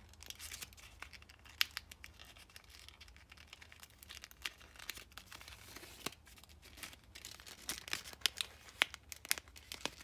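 Blue kami origami paper crinkling and rustling as fingers work the flaps of a folded cube into their pockets, with scattered sharp crackles that come thicker near the end.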